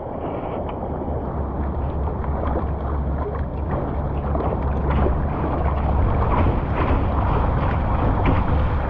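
Water rushing and splashing along the hull of a Current Designs Sisu LV sea kayak as it is paddled through small surf, heard close from a bow-mounted GoPro. Under it runs a low steady rumble, with small splashes from the paddle strokes.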